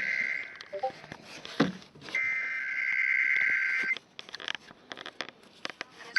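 Emergency Alert System SAME header: the buzzing two-tone digital data burst of an EAS test, heard twice, each burst under two seconds long and about a second apart. Scattered clicks follow.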